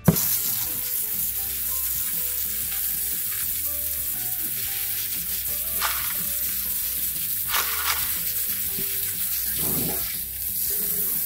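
Water spraying onto tumbled rocks in a mesh sieve and splashing into a plastic utility sink: a steady hiss that starts suddenly. The stones are being rinsed of coarse 60/90 grit slurry after a week in the tumbler.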